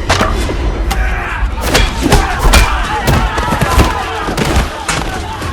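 A fast run of hard punch and body-hit impacts, loud thuds one after another, over a crowd of men shouting and yelling in a brawl.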